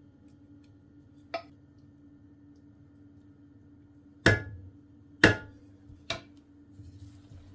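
A small click, then three sharp knocks about a second apart, the first two loudest, each with a brief ring: hard kitchen items set down or tapped during cooking. A steady low hum runs underneath.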